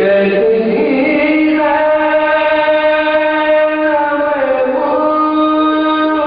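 A man singing a pursa, a Shia mourning elegy, in long drawn-out held notes; the pitch dips and glides about two-thirds of the way through, then holds steady again.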